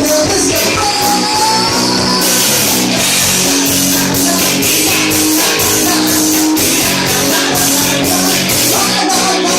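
Rock band playing live: guitar over a steady drum kit beat, with no singing in this passage.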